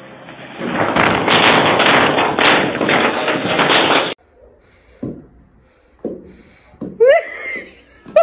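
A loud crashing clatter lasting about three seconds, dull and narrow-sounding as through a security camera's microphone; it cuts off suddenly, followed by a few soft thumps and a short rising cry near the end.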